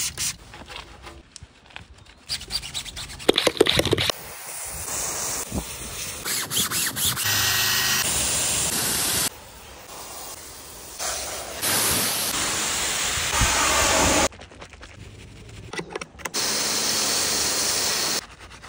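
A run of short, abruptly cut car-cleaning sounds. Near the start, a hand trigger sprayer squirts cleaner onto an alloy wheel. Through the middle, a steam cleaner nozzle hisses steadily on a door sill, and near the end a pressure-washer snow foam lance sprays foam; each hiss starts and stops suddenly.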